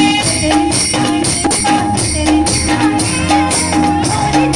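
Uttarakhandi folk dance music: an instrumental passage with a steady drum beat, jingling percussion and a repeating melody line.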